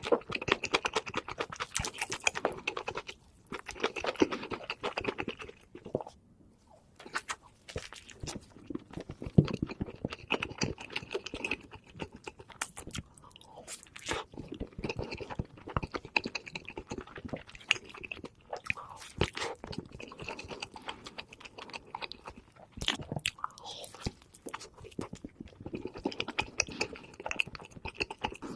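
Close-miked eating: bursts of chewing and crunchy bites, with brief pauses between mouthfuls.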